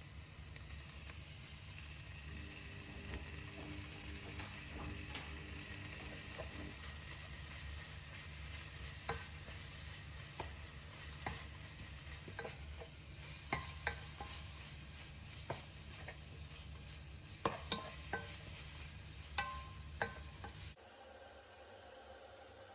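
Food sizzling in a pan while it is stirred, with a spoon clicking sharply against the pan a dozen or so times. Near the end the sizzling cuts off to a quieter steady hiss.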